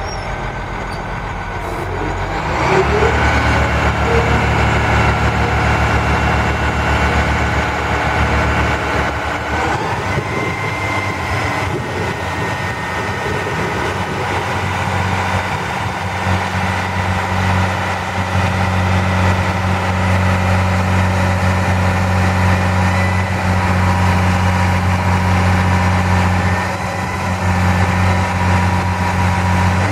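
Cummins 8.3-litre straight-six diesel of a digger derrick truck running steadily while the hydraulic boom is worked, its sound stepping up in pitch and loudness a few seconds in and shifting again several times.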